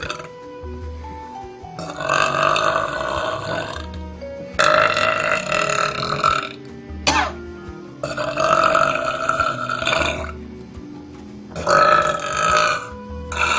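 A woman belching loudly: four long burps of about two seconds each, then a short one near the end, over quieter background music with a melody and bass.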